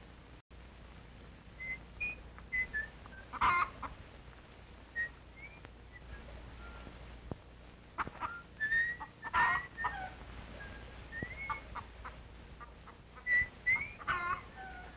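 Chickens clucking and squawking, with short high chirps in between and three louder squawks spread through.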